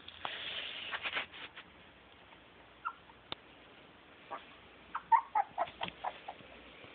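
A small pet animal making a quick run of short squeaky chirps about five seconds in, after a soft rustle at the start and a single chirp and click partway through.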